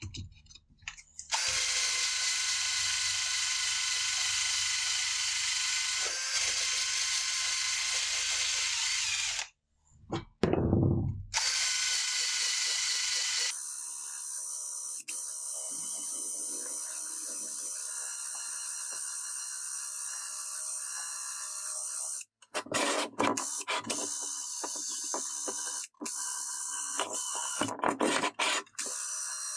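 Power tool running in several edited stretches: a steady high whir, a brief low thud about ten seconds in, then a steadier whir of a different tone, and short on-and-off bursts near the end.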